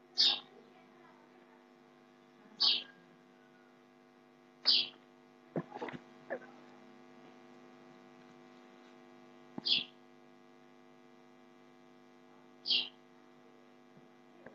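Steady electrical mains hum, with a short hiss about every two to five seconds.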